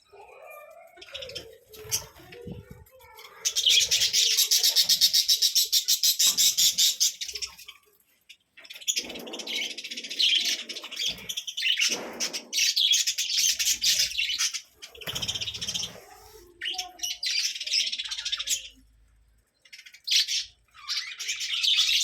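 Budgerigars chirping and chattering in rapid high bursts, loudest and most continuous about four to seven seconds in, then in shorter bursts with brief pauses.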